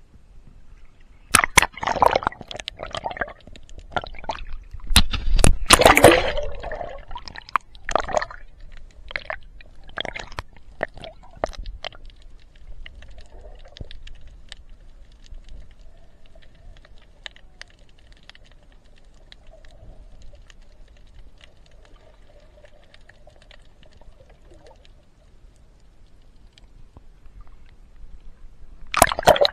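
Water splashing and gurgling against the side of a boat, in loud irregular bursts through the first twelve seconds or so, then quieter lapping, with one more loud splash near the end.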